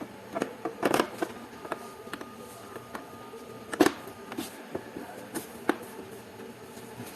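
Irregular clicks and knocks of parts or tools being handled over steady workshop background noise, with the loudest knock about four seconds in.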